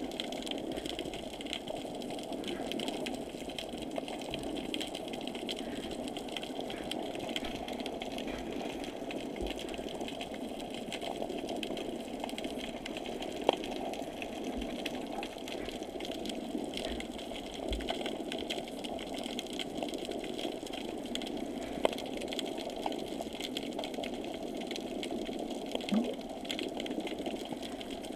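Prototype underwater platform's motors running steadily, heard muffled through water, with a few short sharp clicks.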